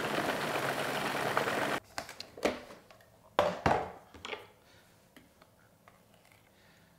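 Food processor running, blending a thick chocolate, butter and almond mixture, then cutting off suddenly about two seconds in. A few sharp plastic knocks follow as the lid is taken off the bowl.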